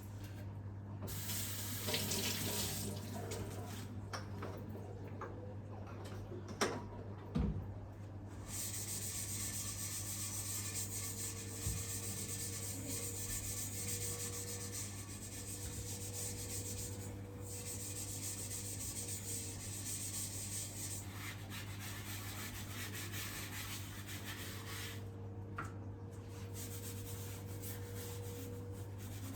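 Tap water running into a sink with rubbing and scrubbing, as in washing up. Two knocks come about seven seconds in, and the water runs most steadily from about nine to twenty seconds in, over a steady low hum.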